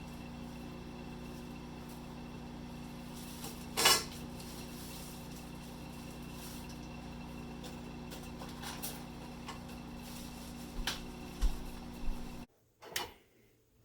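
Dishes and utensils clattering as a meal is plated: one loud clank about four seconds in and a few lighter clinks near the end, over a steady appliance hum that cuts off suddenly just before the end.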